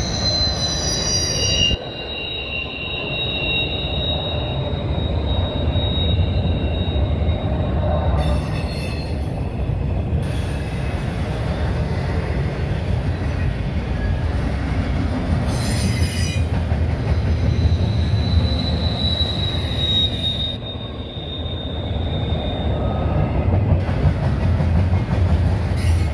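Double-stack intermodal freight cars rolling past, with a steady low rumble of steel wheels on rail. High-pitched wheel squeal comes in for the first several seconds and again for a few seconds near the end.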